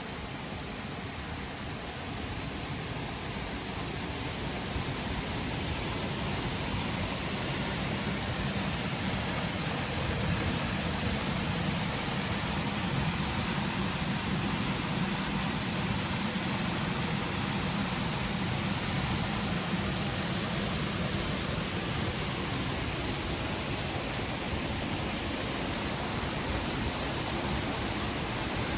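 Steady rush of a waterfall's falling water, an even noise that grows a little louder over the first few seconds and then holds.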